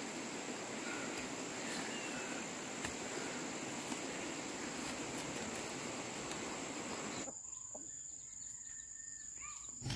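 A steady, high insect drone over field ambience, with a few faint clicks. About seven seconds in, the background suddenly drops quieter while the high insect tone goes on, and a few short bird chirps come near the end.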